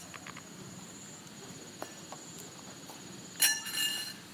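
A faint, steady, high insect drone in the background. About three and a half seconds in comes a short, loud, buzzing rasp lasting about half a second.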